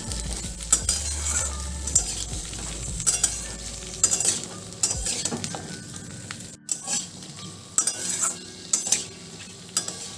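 Flat beans and potato sizzling in hot mustard oil in a kadai on high flame, with a spatula stirring and scraping the pan in short strokes at uneven intervals.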